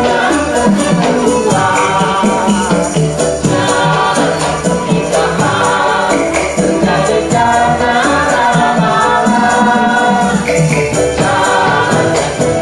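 Music: a choir singing a melody over a steady beat of percussion.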